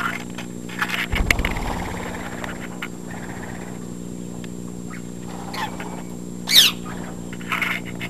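Pet parrots giving a few short, sharp calls in the second half, the loudest a quick call sweeping in pitch about six and a half seconds in. Under it runs a steady low hum, with some clicks and rustling near the start.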